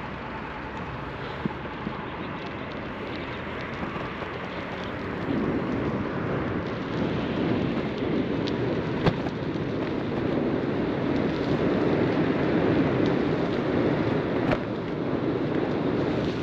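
Steady rushing noise of a bicycle ride: wind buffeting the microphone and the tyres rolling on the path, growing louder about five seconds in, with a few light clicks and knocks from the bike.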